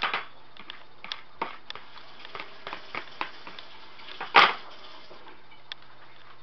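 Handling noise from a camera held against clothing: scattered clicks, taps and rubbing, with one louder knock about four and a half seconds in, over a faint steady low hum.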